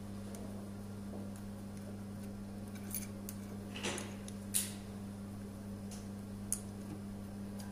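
A few light metallic clicks and clinks as a Mercedes car key is fitted into the steel clamp jaws of an Xhorse Dolphin XP-007 key cutting machine, the sharpest about halfway through, over a steady low hum.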